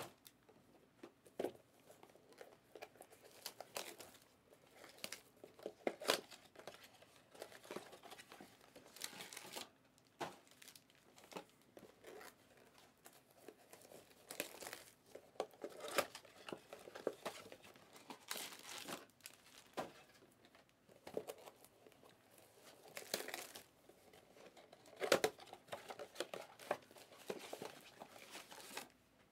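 Plastic wrap crinkling and tearing as it is handled, in short irregular bursts.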